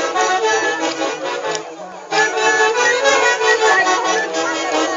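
Traditional folk band music played live for the dancers, a sustained melody line over the ensemble, broken by a short lull about two seconds in.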